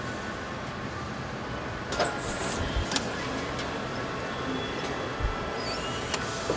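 Car assembly plant machinery running with a steady industrial hum, several sharp clanks, and a short burst of air hiss about two seconds in.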